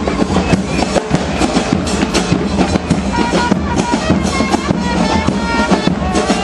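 Murga percussion band playing: bass drums with cymbals mounted on them (bombos con platillo) beating a fast, dense rhythm, with short high held tones sounding over it.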